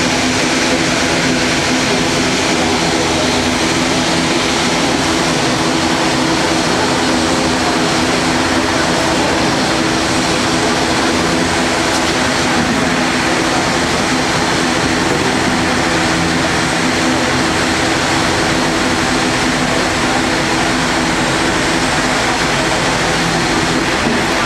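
Caribbean Airlines ATR-72's twin turboprop engines running steadily, a low propeller hum of several steady tones over engine noise, heard through terminal glass.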